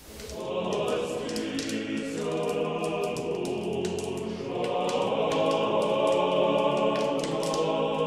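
Choir singing slow, sustained chant as closing music, fading in at the start. Scattered short crackles run over it.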